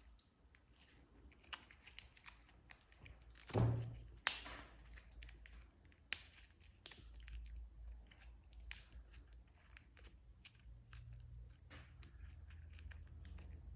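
Slime mixed with glitter by hand: a run of irregular small wet clicks and pops, with a louder squelch about three and a half seconds in and sharp pops soon after.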